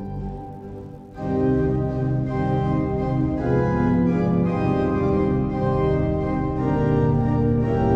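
Organ music: held chords, quiet at first, then coming in much louder about a second in and moving from chord to chord.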